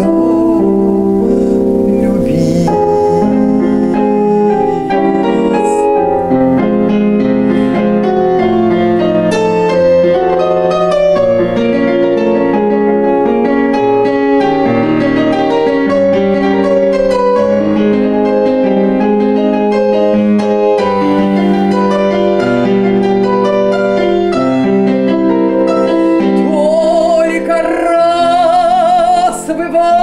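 Piano accompaniment to a Russian romance, playing an instrumental interlude. Near the end a woman's voice comes back in, singing with a wide vibrato.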